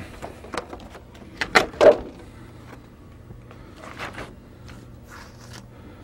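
Newspaper rustling and a Masonite board being slid and set down on it on a workbench: a few short scrapes and knocks, the loudest a couple of seconds in.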